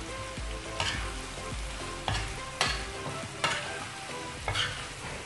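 Boneless chicken frying in masala and cream on a tawa with a steady sizzle, stirred with a steel spoon that scrapes and knocks sharply against the pan about five times.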